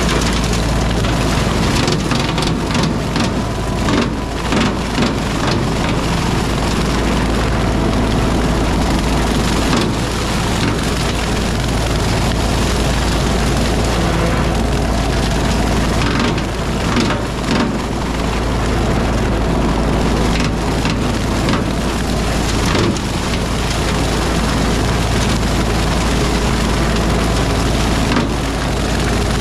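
RK37 tractor's engine running steadily under load while a rotary cutter mows brush, with scattered clusters of sharp cracks and snaps from material being cut, heaviest a few seconds in and again past the middle.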